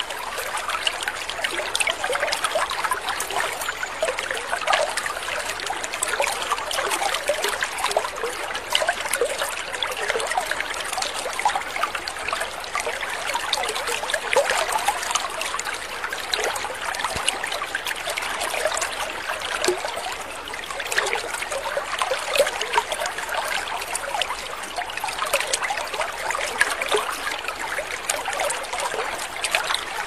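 Running water, a steady trickling and splashing like a stream, with no breaks.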